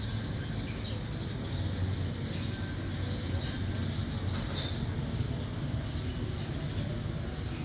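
Insects droning outdoors: one steady high-pitched whine held without a break, over a low rumble of background noise.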